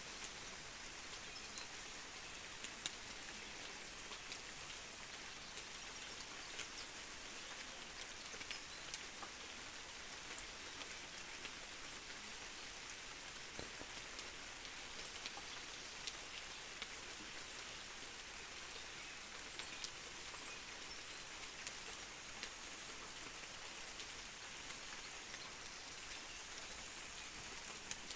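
Steady rain falling, with many separate drops ticking on surfaces over an even hiss.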